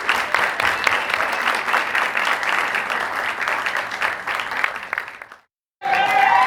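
Small theater audience applauding, the clapping thinning and dying away about five seconds in. After a short gap of silence a new round of applause starts near the end, with voices calling out over it.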